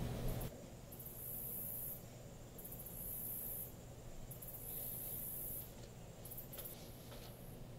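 Faint night ambience: a high-pitched insect trill in pulses about a second long, repeating every second and a half or so, over a low background rumble.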